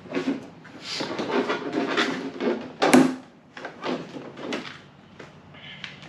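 A car seat with a hard plastic back shell being handled and shifted on top of a storage case: an irregular string of clunks, knocks and scraping rustles. The loudest knock comes about three seconds in.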